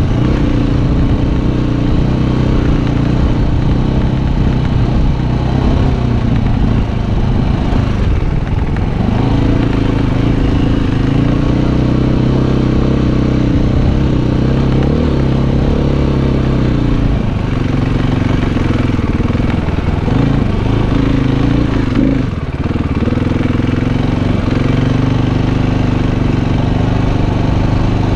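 Dirt bike engine heard from on the bike while riding, running the whole time with its pitch stepping up and down several times as the throttle is opened and closed.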